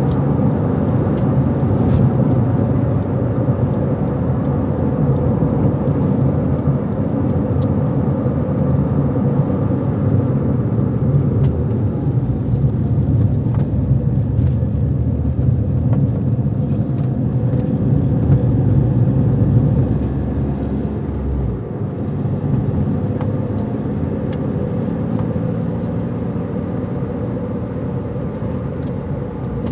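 Steady road noise of a car driving: tyres on the road and the engine running. It gets a little quieter about two-thirds of the way through.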